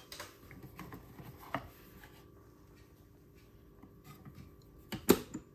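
Hard plastic of a Fisher-Price Laugh & Learn Letters Mailbox toy being handled: light clicks and rattles as a letter card is taken out, then a sharp plastic clack about five seconds in as the hinged front door is swung shut.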